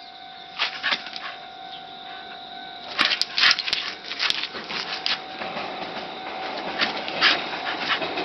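Shiba Inu dog at play in a game of chase: irregular scuffles and sharp clicks of movement, strongest about three seconds in, over a faint steady tone.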